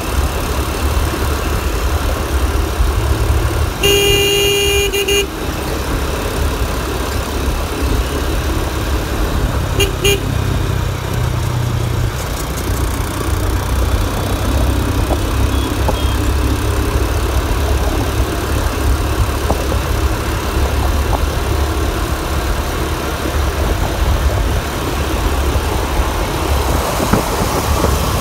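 Motorcycle running steadily on the road, heard from the rider's seat as a continuous low rumble. A horn sounds once for about a second around four seconds in, and two short horn toots come about ten seconds in.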